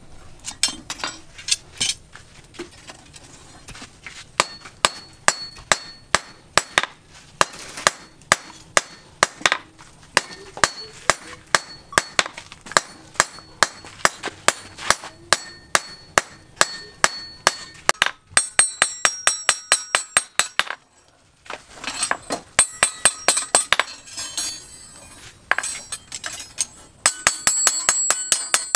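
Blacksmith's hand hammer striking a red-hot steel tine of a multi-hook fishing hook on a small steel anvil, forging it to shape. The blows come about two a second, each with a metallic ring. About two-thirds of the way in they turn to quicker, lighter strikes with a higher ring.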